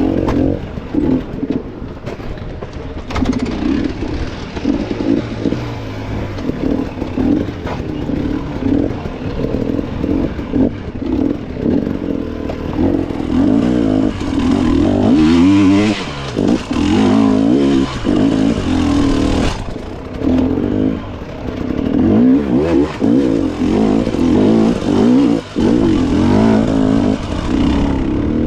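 Dirt bike engine running hard, its pitch rising and falling as the throttle is worked on and off, with quick revs about halfway through and again near the end.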